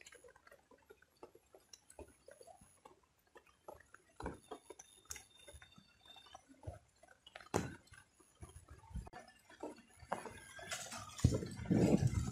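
Faint scattered clicks and small splashes from wading in a shallow muddy pond, with two sharper knocks, then heavier splashing and sloshing near the end as a bamboo fishing spear is thrust into the water.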